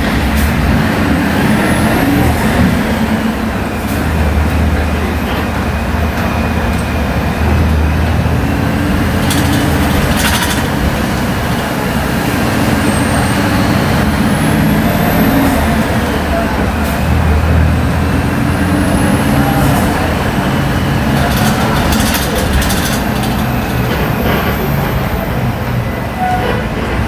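Natural-gas (CNG) city bus engine on a Volksbus 17-230 OD chassis running under way, its pitch rising and falling several times as the bus accelerates and eases off, with a faint whine that rises and falls along with it. A few brief sharp noises break in about a third of the way through and again near the end.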